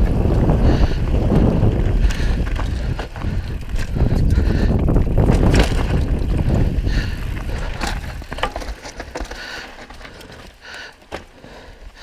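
Mountain bike riding down rocky singletrack: wind buffeting the GoPro's microphone and the rumble of tyres over rock and gravel, with frequent sharp clicks and rattles from the bike. It all gets quieter over the last four seconds.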